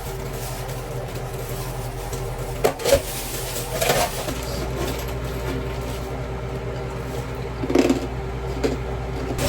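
Steady low mechanical hum with a few scattered knocks and clatters: one at the start, two close together about three seconds in, one at four seconds and a last near eight seconds.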